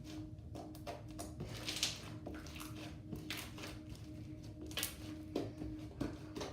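Homemade glitter slime being worked by hand, giving irregular soft clicks and crackling pops as it is squeezed and poked, over a steady low hum.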